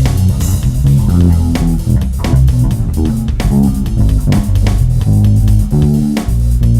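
Bass guitar played solo: an improvised line of plucked low notes, changing pitch several times a second.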